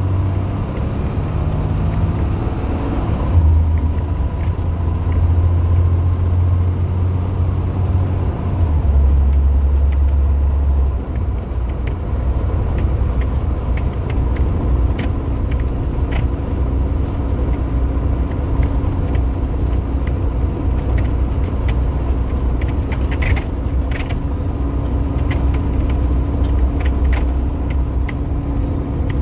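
Cummins diesel engine of a 2016 International school bus running as the bus drives along, heard from the driver's seat. Its low drone steps in pitch a few times in the first ten seconds or so, and light clicks and rattles from the cab come in later.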